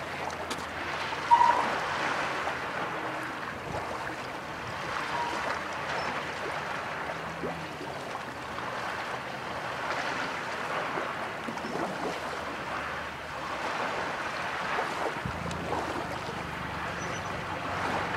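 Small lake waves lapping at the shore with wind, a steady rush of water that rises and falls. A gull calls once, short and loud, about a second and a half in.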